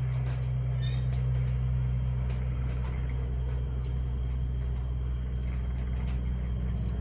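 Low, steady rumble of thunder during a storm.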